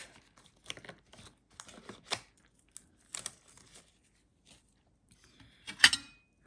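Disposable gloves crinkling and rustling in small scattered noises as they are pulled off and handled. About six seconds in comes one sharp clink with a brief ring.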